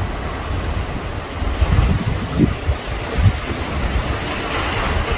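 Hurricane winds rushing through trees in strong gusts, buffeting the microphone in irregular low thumps. The hiss of the wind swells near the end.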